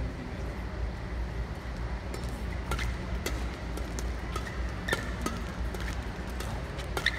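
Badminton rally: sharp racket strikes on the shuttlecock, several of them from about two and a half seconds in, over a steady low hum in a large hall.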